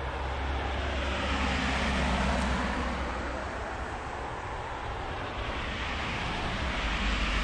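Road traffic passing on a nearby road: a steady rushing noise that swells about two seconds in, eases off and builds again near the end, over a low steady rumble.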